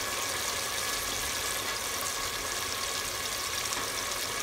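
Manchurian gravy base of tomato, ginger-garlic, spices and chili sauce sizzling steadily in oil in a pot over low heat.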